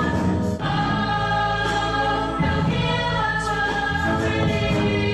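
Background music: a song with sung vocals over a steady accompaniment.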